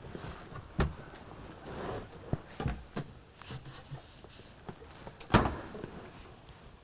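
Knocks and scuffs of people climbing through a hinged wooden floor hatch, with a sharp knock just under a second in and a louder thump a little past five seconds.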